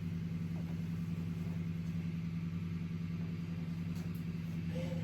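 A vehicle engine running steadily, a constant low hum with no change in pitch.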